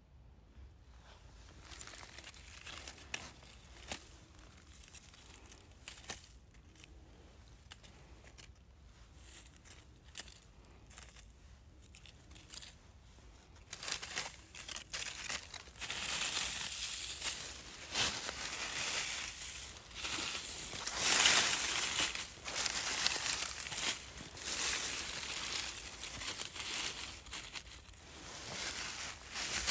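Dry fallen leaves crinkling and rustling as a hand sifts through leaf litter. The crackling is faint and sparse at first and grows louder and busier about halfway through.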